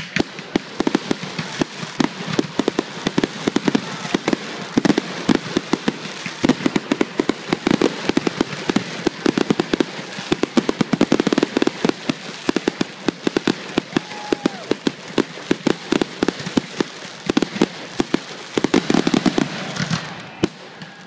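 Fireworks display: aerial shells bursting in a dense, rapid run of sharp bangs and pops, many close together, easing slightly near the end.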